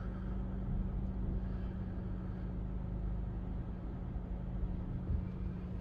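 2024 Toyota Tacoma SR5's 2.4-litre turbocharged four-cylinder engine running at low speed as the pickup backs down off drive-on ramps: a steady low hum.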